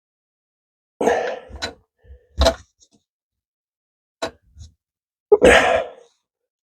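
A few separate clanks and scrapes of metal as an old Badger half-horsepower garbage disposal is worked loose from its sink mounting and taken down, the loudest about five and a half seconds in.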